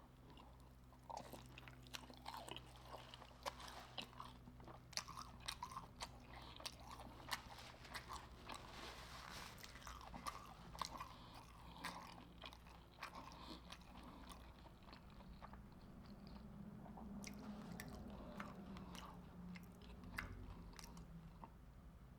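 Close-up chewing and crunching of batter-fried seafood, with many sharp crackles and mouth clicks. Near the end there is a low, steady closed-mouth hum.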